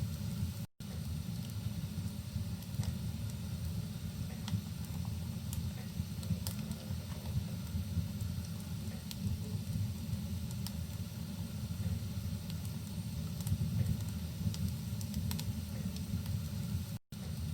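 Fireplace and rain ambience: a steady low rumble and hiss with scattered small crackles and pops from a wood fire. The sound cuts out completely for an instant twice, once about a second in and once near the end.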